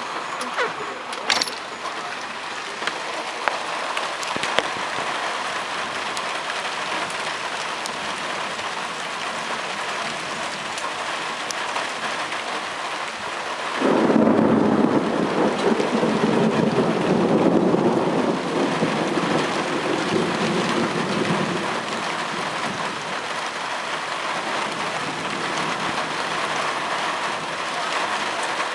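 Heavy rain falling steadily. About fourteen seconds in, a close lightning strike sets off a sudden, loud clap of thunder that rolls and rumbles for about eight seconds before sinking back under the rain.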